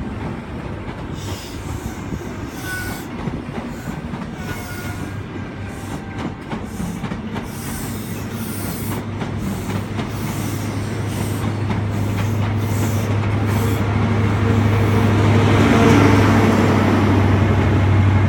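High Speed Train (InterCity 125) pulling out of the station, its coaches rolling past with a steady low hum that builds as the rear Class 43 diesel power car draws near, loudest about sixteen seconds in.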